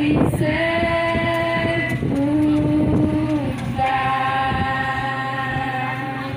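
Voices singing long held notes, three of them in turn, each held for one to two and a half seconds.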